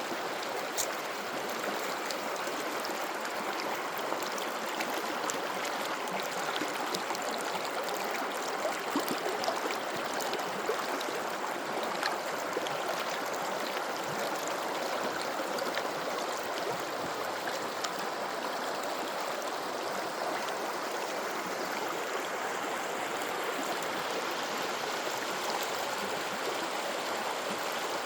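A river flowing: a steady rush of moving water with faint splashes scattered through it.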